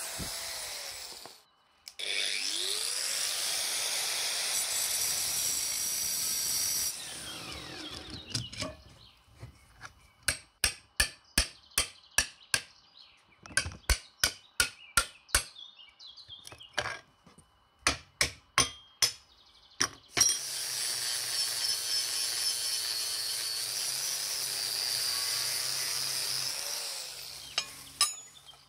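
Angle grinder running on steel, cutting off briefly and starting again. Then a hammer driving a cold chisel into a steel plate: sharp metal strikes in quick runs of two or three a second. Then a power grinder running on the steel again, winding down near the end.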